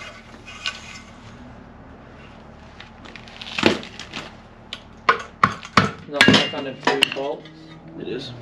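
Metal engine parts clinking and knocking as the cooling-fan pulley and its housing are pulled apart and handled on a concrete floor, with a run of sharp clanks in the second half.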